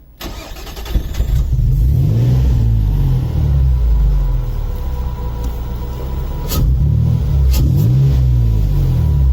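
Nissan V6 engine of a Jannarelly Design-1 sports car accelerating, its pitch climbing twice as it revs up, with two sharp clicks between the pulls.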